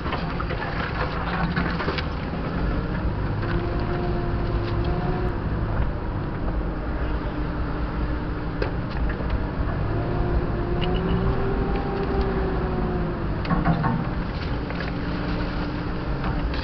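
Off-road 4x4's engine running steadily at low speed while crawling along a rough track, with a faint whine that slowly rises and falls in pitch and a few short knocks over the bumps.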